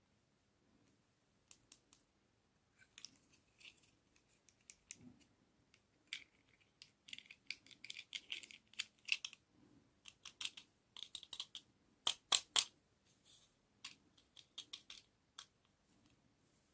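Hands handling small plastic toys and packaging: scattered clicks and taps, with bursts of crinkling and rustling in the middle.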